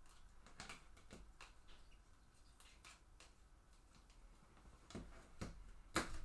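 Faint, irregular clicks of a computer keyboard and mouse being used, with a louder click near the end.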